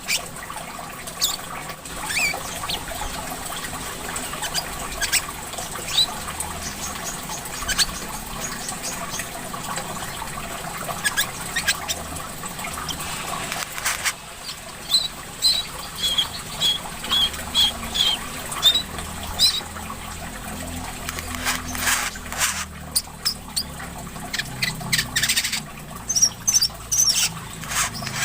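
Small songbirds chirping and calling in quick high notes, with a run of short evenly spaced chirps about halfway through, over the steady sound of trickling water.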